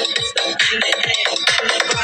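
Electronic dance music with a fast beat and deep bass hits that drop in pitch, played loudly through a Bluetooth speaker under repair. It is set to volume 20, low enough that its amplifier chip's mute control does not cut the sound.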